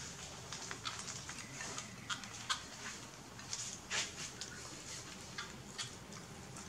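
Baby macaques eating rice by hand: irregular small clicks and smacks of chewing and handling food, loudest about four seconds in.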